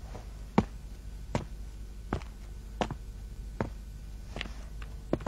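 Footsteps walking away on hard ground, a sharp step about every three-quarters of a second, over a low steady hum.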